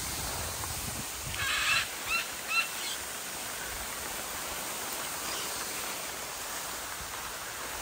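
Bird calls: a short wavering call about a second and a half in, then two brief chirps, over a steady outdoor background hiss.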